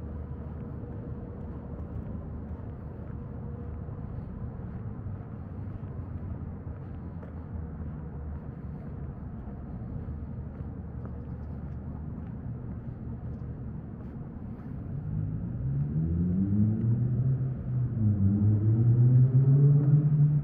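Steady low background rumble, then in the last few seconds a vehicle engine grows louder as it speeds up, its pitch climbing, dropping briefly and climbing again.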